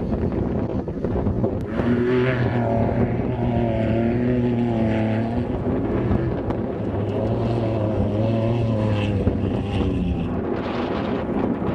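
Off-road trophy truck engines running hard as the trucks race past on a dirt desert course, the engine note wavering up and down through two long passes.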